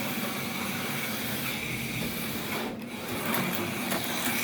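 HO-scale slot car running around a plastic track: the small electric motor's steady mechanical whirr.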